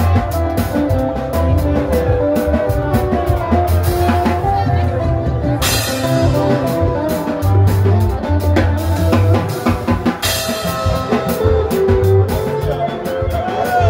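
Live band music: electric guitar and keyboard over a bass line and a drum kit keeping a steady beat, with two cymbal crashes about six and ten seconds in.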